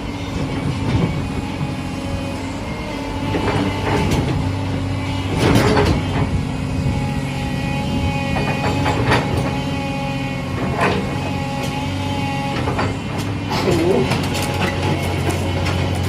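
Diesel engine of a Doosan DX225LC-7 excavator running steadily, with a series of sharp knocks and clanks spread through the stretch.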